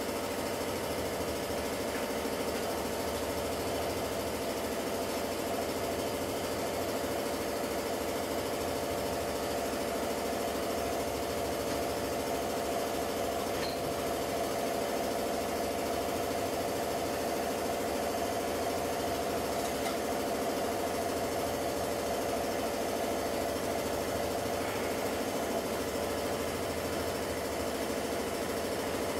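Steady, even electric hum of a homemade powder-coating oven running with its heating element on, with a couple of faint ticks.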